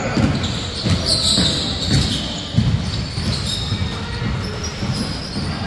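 A basketball bouncing repeatedly on an indoor court, with players' voices in the background, echoing in a large hall.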